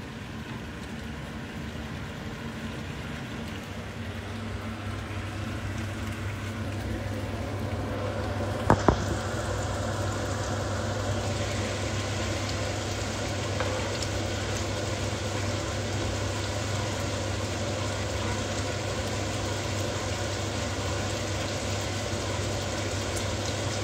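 Chilli sambal bubbling and sizzling in oil in a frying pan as it is cooked down until dry, with a steady hiss that grows louder over the first several seconds. A steady low hum runs underneath, and there are two sharp clicks about nine seconds in.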